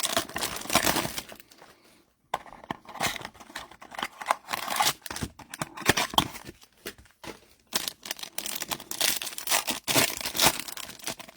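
Trading-card packaging being opened by hand: irregular crinkling and tearing of wrapper, with rustles and small clicks as the packs and cards are handled.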